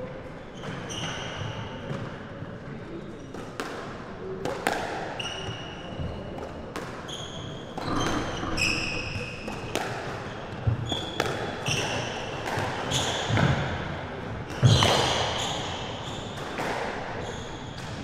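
Squash rally: the ball cracking off the rackets and court walls again and again, with rubber-soled court shoes squeaking sharply on the wooden floor. The heaviest impact comes about three-quarters of the way through.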